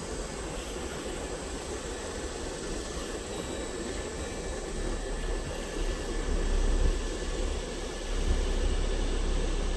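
A vehicle driving, heard as a steady low rumble with road and wind noise that grows louder over the second half.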